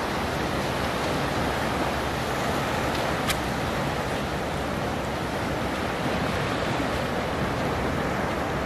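Surf breaking and washing up the beach, a steady rushing noise, with a single sharp click about three seconds in.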